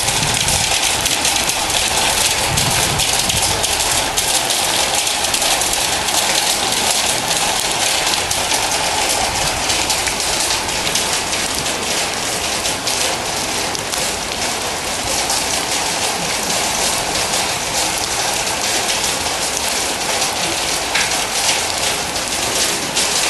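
Rain falling on the metal roof of an indoor riding arena, heard from inside as a steady, even hiss with no let-up.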